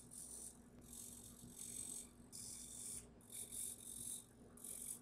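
Hitec HS-55 micro servos on a homemade pan-tilt camera mount whirring again and again in short high-pitched spells, each under a second long, as they pan and tilt the camera.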